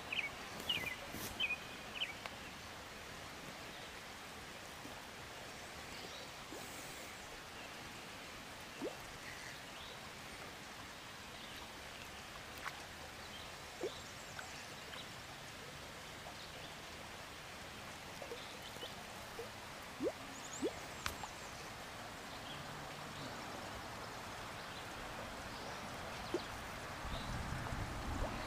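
Quiet outdoor ambience beside a pond: a faint steady background hiss with scattered short faint clicks, and a few brief high chirps near the start.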